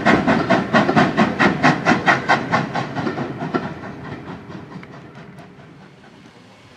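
Steam tank engine's exhaust beats, sharp chuffs about five a second, fading away about halfway through.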